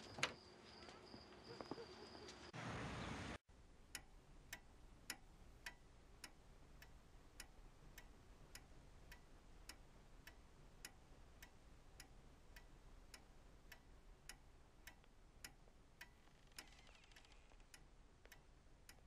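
A clock ticking quietly and steadily, about two ticks a second. It is preceded by a sharp knock and a short rush of noise in the first few seconds.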